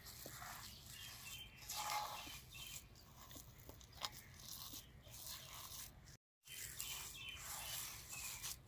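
Hands squishing and kneading a soft mashed potato-and-pea paste in a terracotta bowl: faint, irregular squelches and rustles, with a brief cut to silence a little after six seconds.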